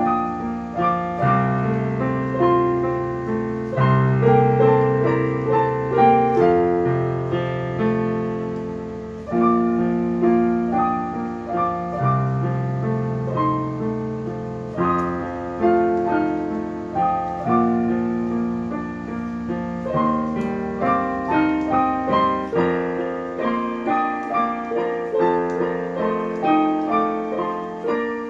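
Solo piece played on a digital piano: a melody of evenly paced notes over low bass notes held for a second or two at a time.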